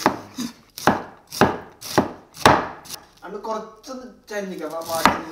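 Chef's knife slicing red cabbage on a wooden cutting board: a run of sharp knocks as the blade cuts through and strikes the board, about two a second, some stronger than others.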